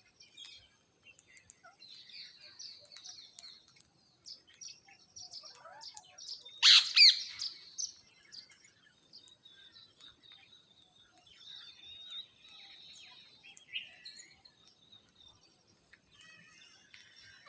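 Parrots chirping and chattering in short high calls, with one loud harsh screech about seven seconds in.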